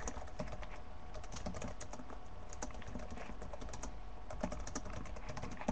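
Typing on a computer keyboard: quick, light key clicks in irregular runs with short pauses.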